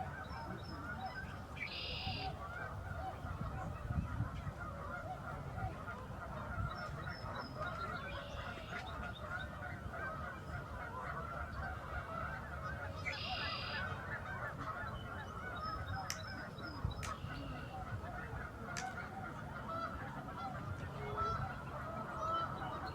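A large flock of wild geese calling together in a continuous, overlapping chorus of honks. Two brief higher calls stand out, about two seconds in and again around thirteen seconds.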